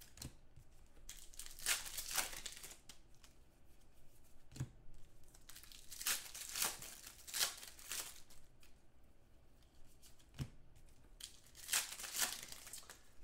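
Trading card pack wrappers being torn open and crinkled in three spells of rustling, with two short knocks in between.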